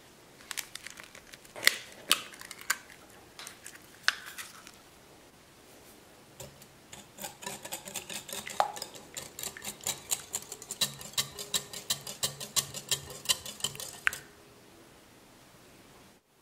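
A metal wire whisk beating a runny egg and butter mixture in a glass mixing bowl: a quick, even run of clicks and scrapes against the glass, about four a second, for several seconds. Before it come a few separate clinks and taps of glass.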